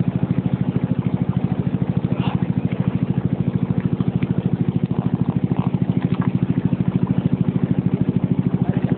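Small boat's engine running steadily, an even, fast thumping of about twelve beats a second.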